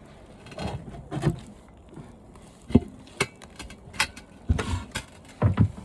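Irregular knocks, clicks and scrapes of an old television's parts being handled and pried loose while it is taken apart, with a few heavier thuds near the end.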